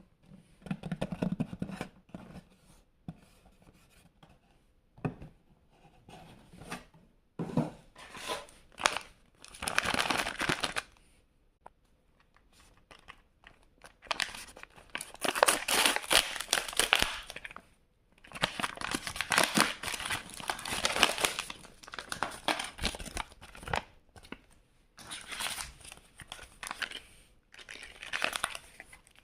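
Blind bag packets being torn open and crinkled by hand, in several bouts of ripping and rustling with short pauses between.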